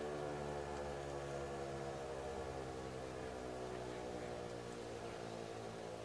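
ASC T-128 outdoor warning siren winding down at the end of its test: its tone slides slowly and steadily lower in pitch and fades.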